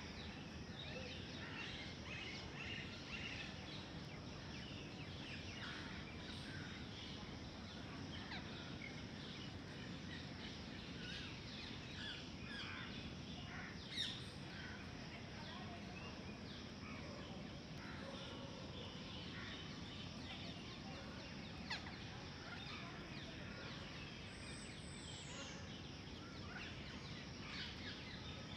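Steady outdoor background noise with many faint bird chirps scattered throughout. A single sharp click about halfway through is the loudest sound, with a smaller click later on.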